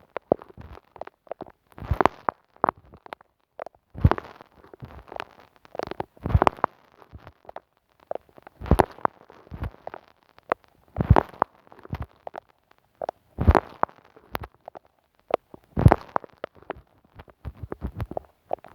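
Sticky, squishy rubbing and crackling right on a microphone, ASMR triggers made with glue and sticky material. It comes in clusters of short strokes about every two seconds.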